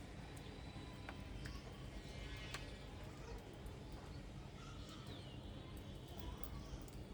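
A few faint bird chirps over a steady low background rumble, with scattered light clicks.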